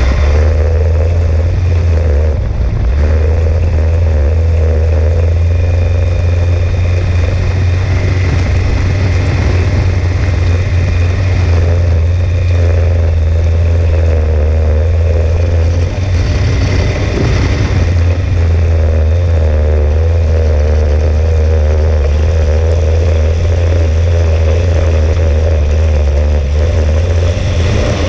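Dune buggy engine running hard under throttle, loud and steady close up from the buggy itself, with brief changes in its note about two seconds in and again around sixteen seconds in.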